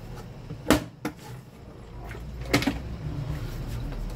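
Hard objects being handled: a sharp clack about three-quarters of a second in, a lighter click just after, and two more clacks close together past the middle, over a low steady hum.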